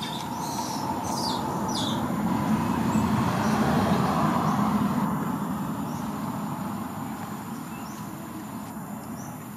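A vehicle passing by: a rumbling noise that swells to its loudest about four seconds in and slowly fades away. A few short bird chirps sound over it in the first two seconds.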